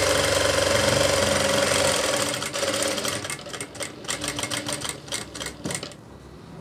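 Sewing machine stitching through a folded double layer of cloth. It runs steadily for about two seconds, then slows to distinct single stitches, as when easing stitches around a curve, and stops shortly before the end.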